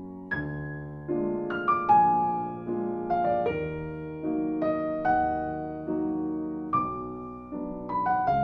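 Solo piano music playing a slow, gentle melody, each note struck and fading over lower sustained chords.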